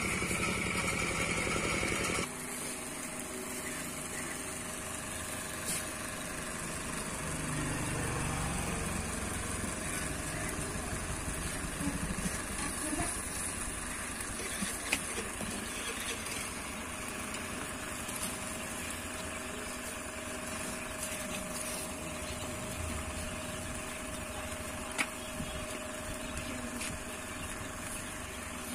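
Electric table fan running steadily, blowing air onto the glowing charcoal of a grill, with a steady hum and a few faint clicks.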